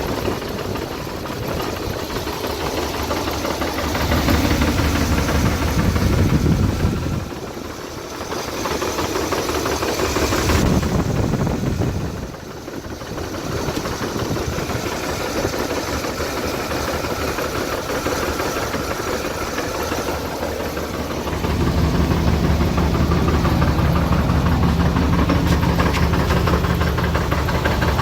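8.1-litre V8 engine running with a bad clacking knock. The noise remains after the rockers and lifters were checked, and the owner suspects the crankshaft rod bearings. The sound is louder and steadier in the last quarter.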